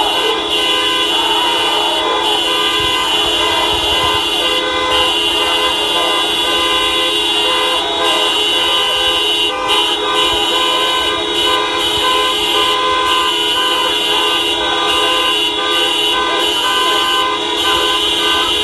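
Many car horns honking at once in a continuous, overlapping chorus of held tones: motorists sounding their horns in support of a street protest.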